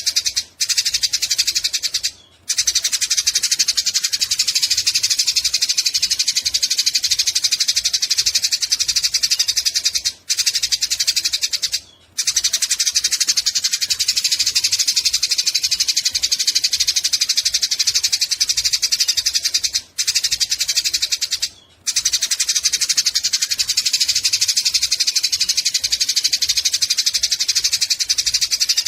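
Eurasian tree sparrows chattering fast and harshly in a fight, a dense, steady mass of high chirps broken by a few very short gaps.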